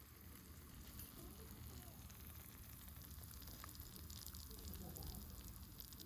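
Food sizzling faintly in a hot pan, a steady crackling hiss with many fine pops.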